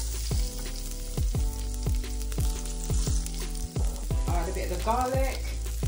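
Chopped garlic sizzling as it is dropped into hot vegetable oil in a nonstick frying pan, over background music with a steady beat of about two strokes a second.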